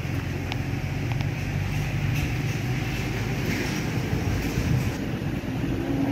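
A steady low motor hum under an even hiss, with a couple of faint clicks about half a second and a second in.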